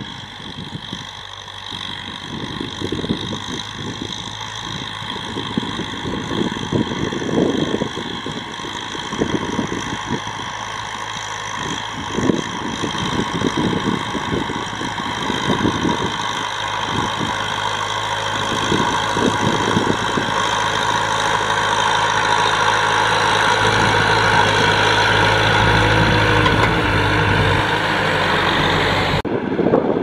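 Kubota M6040SU tractor's four-cylinder diesel engine running steadily under load while disc-ploughing, growing louder as the tractor comes closer. Just before the end the sound changes abruptly.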